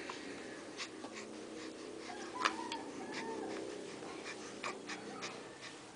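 Soft wheezy, snuffly breathing with scattered small clicks and a brief soft whine about halfway through.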